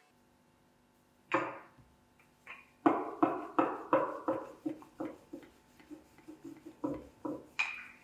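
Wooden rolling pin knocking on the counter as it rolls out a ball of dough: a run of sharp knocks about three a second that grow lighter, with a brighter knock near the end.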